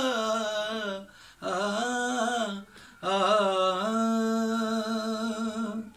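A man singing a naat solo with no instruments. He draws out the closing words in three long held phrases, the first two wavering in pitch. The last note is held level and stops abruptly just before the end.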